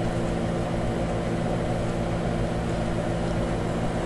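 A steady mechanical hum with several low steady tones under an even hiss, holding the same level throughout.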